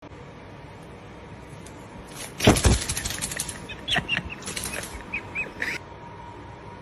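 Paper rustling and crinkling in bursts as a cat paws at it and grabs it, with a few short high squeaks among the rustles.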